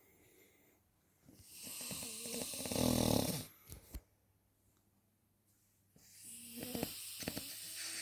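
A man snoring: two long snores, the first starting about a second in and loudest near its end with a low rattle, the second starting about six seconds in.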